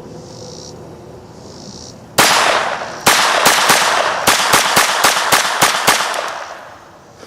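Walther P22 .22 pistol firing: one shot, a second about a second later, then a fast string of about a dozen sharp pops, several a second, emptying the magazine.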